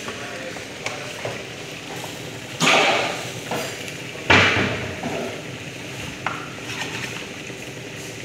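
Food frying and sizzling in a pan while a wooden spatula stirs it, with a few light knocks of the spatula on the pan and two louder bursts of sizzle and scraping about two and a half and four seconds in.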